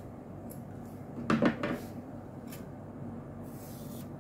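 Small hard objects knocking on a tabletop as craft tools are handled: a quick cluster of clacks about a second and a half in, then a faint rustle near the end.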